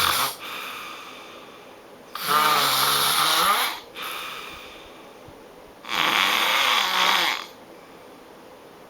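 A person snoring loudly: two long, rasping snores, each about a second and a half, the second coming about three and a half seconds after the first, with a weaker breath after the first one.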